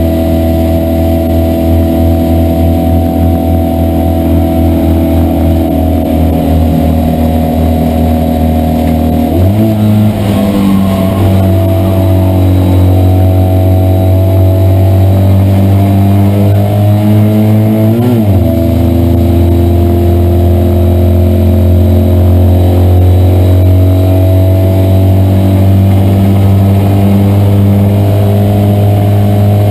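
Citroën 2CV racing car's air-cooled flat-twin engine running hard, heard from inside the car. The engine note jumps suddenly in pitch about nine seconds in and again about eighteen seconds in, as gears are changed.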